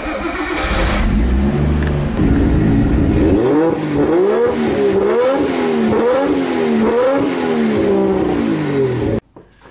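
Nissan Skyline R32 GTST's RB25DET turbo straight-six heard at the exhaust. It runs steadily for a few seconds, then is revved in a series of rising and falling blips, and the sound cuts off suddenly near the end.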